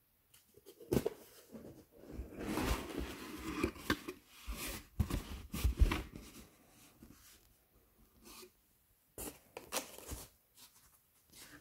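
A graphics card's retail box and packaging being opened and handled: irregular rustling, scraping and tearing, with a few sharp clicks and knocks.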